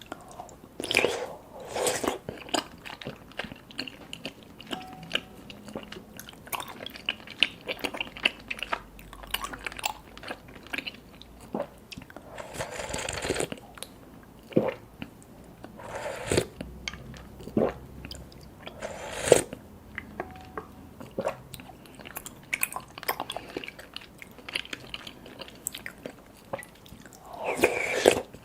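Close-up mouth sounds of chewing sticky, chewy black tapioca pearls (boba): many wet clicks and smacks, with a few longer slurps of taro milk tea through a straw, about 13, 16 and 19 seconds in and again near the end.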